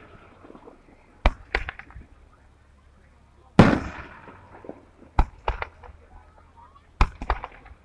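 Aerial firework shells bursting: four sharp bangs, each followed by a quick run of smaller pops and crackles. The loudest comes about three and a half seconds in and trails off in a long rolling echo.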